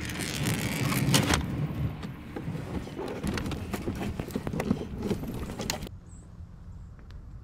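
Footsteps crunching on gravel, with knocks and rattles as the small boat with its gear is moved across the gravel. About six seconds in it cuts to a much quieter outdoor background with a few faint chirps.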